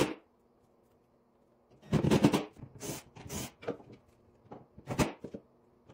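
A few loud knocks and rattles: a cluster about two seconds in, another around three seconds, and a single sharp knock near five seconds, with a faint low hum in the quiet before them.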